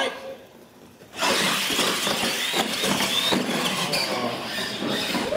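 RC monster trucks launching off the start line and racing down the track: a sudden burst of motor whine and tyre noise starts about a second in and keeps going steadily.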